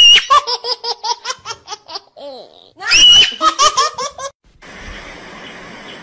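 High-pitched giggling laughter: a squeal, then a quick run of 'ha-ha' pulses, a second squeal and more giggling. It stops about four seconds in, and a steady hiss of background noise follows.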